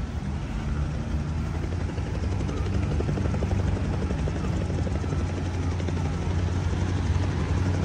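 Helicopter running steadily with a low drone, growing slightly louder.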